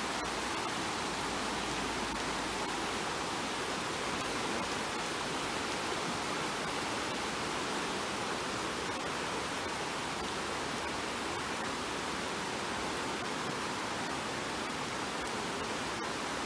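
Steady rushing of muddy floodwater from a swollen stream, with heavy rain falling on the water.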